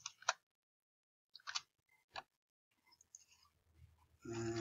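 A few sharp computer keyboard and mouse clicks, spaced out over the first two seconds, then a brief low hum near the end.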